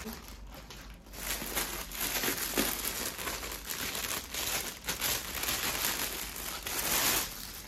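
Plastic packaging crinkling and rustling as a courier mailer and a clear plastic bag are handled and pulled open, loudest near the end.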